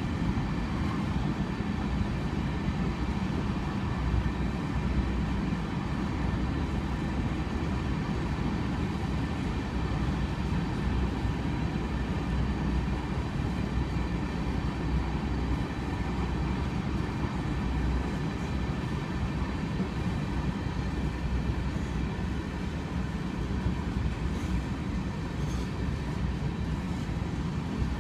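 Union Pacific train rolling past, a steady rumble of wheels and railcars on the track with no horn.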